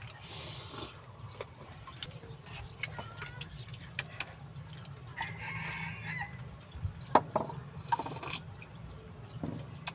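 A rooster crowing about halfway through, among scattered clicks and taps of spoons against plastic bowls; the loudest sound is a sharp click shortly after the crow.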